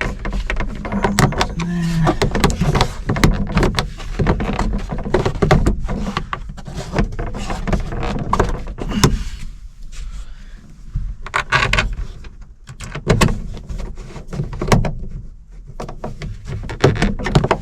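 Dashboard parts being handled and fitted back together by hand: a busy run of clicks, knocks and rattles, with a steady low hum underneath.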